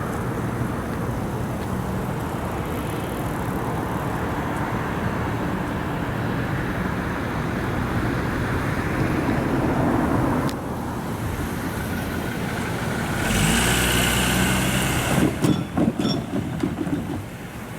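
Vehicles passing at a railway junction level crossing: a steady rumble, a louder passing vehicle about 13 seconds in, then a run of sharp irregular clacks.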